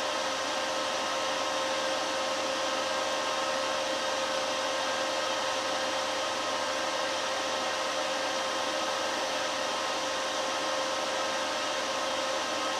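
Homemade induction heater built from a welding inverter, running under load with an iron crucible in its coil: a steady fan-like whir with a steady hum-tone through it.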